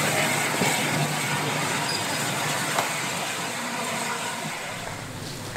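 LNER A4 Pacific steam locomotive 60007 moving off light engine, a steady hiss and running noise that fades gradually as it draws away.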